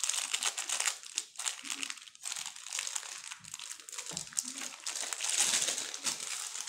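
Clear plastic wrap crinkling as gloved hands peel and pull it off a long cardboard box, with short breaks about one and two seconds in.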